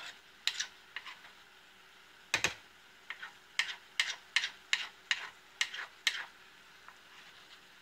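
A metal spoon scraping and knocking against the bottom of a stainless steel skillet, working half-set beaten eggs together in the middle of the pan. The scrapes are short and come in a loose string, about two a second later on, with the loudest one about two and a half seconds in; they stop a little after six seconds in.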